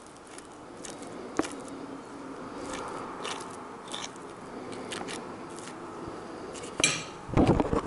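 Table knife spreading butter on a crusty slice of homemade bread: light, scattered scrapes and crackles of the blade on the crust, then a sharper click and a few louder thumps near the end.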